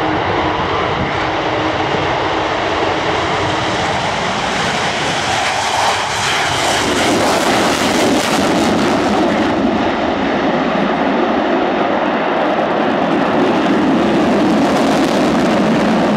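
Avro Vulcan's four Olympus turbojets at full power on takeoff and climb-out: loud, steady jet noise that grows louder and deeper about seven seconds in as the bomber climbs past close overhead.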